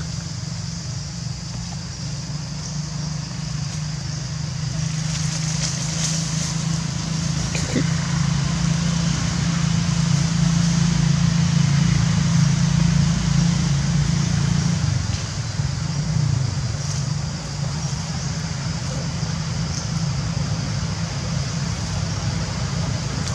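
An engine running steadily with a low hum, growing louder toward the middle and easing a little about two-thirds through, over a steady high hiss.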